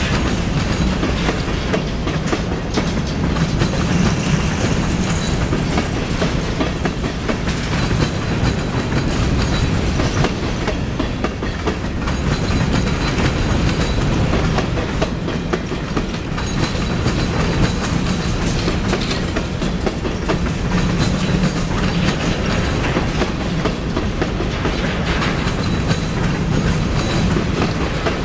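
Empty covered hopper cars of a freight grain train rolling steadily past, their steel wheels running on the rails with a continuous stream of clicking.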